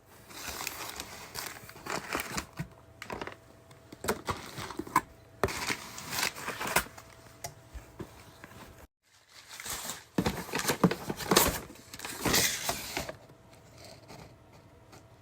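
Packaging being crinkled and rustled while a small fan kit is unpacked. It comes in irregular bursts with sharp clicks and dies down near the end.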